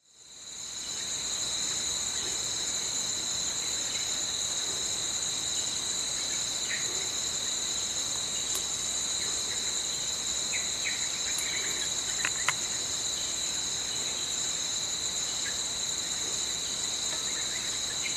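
Steady chorus of forest insects: two unbroken high-pitched buzzing tones that fade in at the start and hold. A few faint chirps and one sharp click come a little after the middle.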